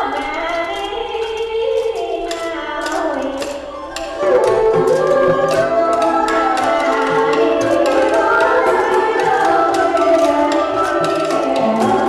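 Traditional Vietnamese water puppet theatre music: singing over struck percussion, getting louder about four seconds in.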